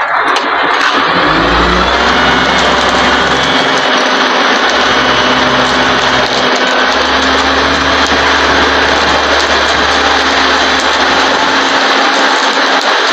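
Loud, steady engine and machinery noise, with a low drone underneath that shifts several times.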